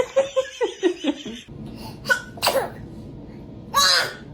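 A baby sneezing: a few short whimpering sounds and quick breaths, then one sharp, loud sneeze near the end.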